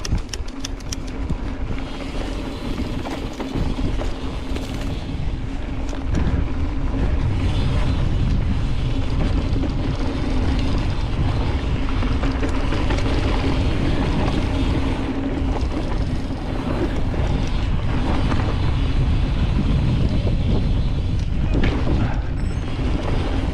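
Wind rushing over the camera microphone with the low rumble and light rattles of a mountain bike rolling down a dirt trail, louder from about six seconds in.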